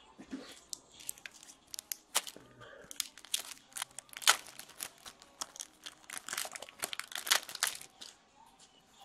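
Shiny foil wrappers of 2014-15 Upper Deck SP Authentic hockey card packs being torn open and crinkled by hand: a run of sharp crackles and rips, loudest about four seconds in and again near seven seconds.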